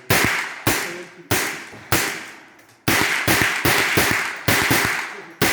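Gunshots on a shooting range: about a dozen shots in quick, irregular succession with a short pause about halfway, each ringing out with an echo.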